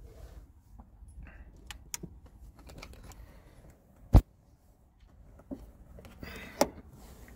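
Handling noise inside a small car: scattered clicks, taps and rustles as a handheld camera is moved about, with one sharp knock about four seconds in and a brief rustle near the end.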